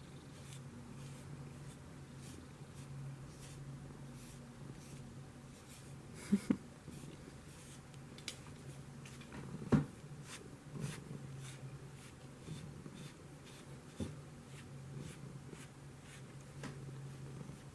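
A brush combing through a Siberian cat's long fur in repeated soft, scratchy strokes, about one or two a second. A few louder knocks come at about six and ten seconds in.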